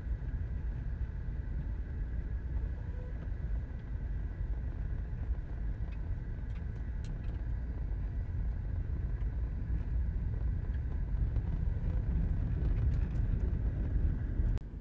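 Jeep driving on a back road, heard from inside: a steady low rumble of engine and tyres, with a few light clicks partway through and again near the end.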